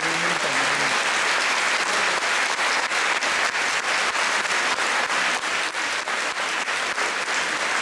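Audience applauding, a dense, steady clapping that fills the hall.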